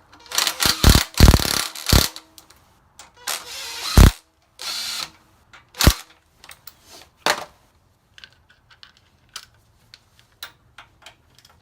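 Metal hand tools and parts clattering and clanking, with sharp knocks about four, six and seven seconds in, then a few lighter clicks.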